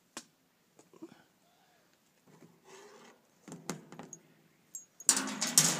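Handling noise: a few light clicks and knocks, then a loud rustling burst near the end.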